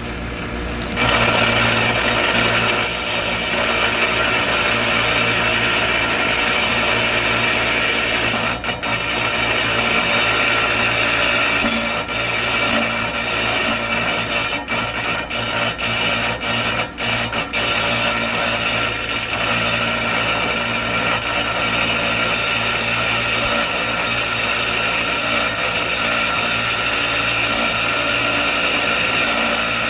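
A power tool cutting and grinding into lavender agate, taking off rough spots before tumbling. A steady grinding hiss over a motor hum starts about a second in, with a few brief breaks near the middle where the tool comes off the stone.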